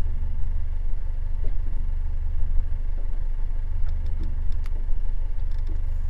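Steady low rumble of a fishing boat's engine idling, with a few faint ticks.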